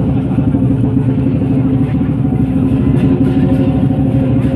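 Lion dance percussion: a drum beaten in a fast, continuous roll, with a steady ringing metal tone over it.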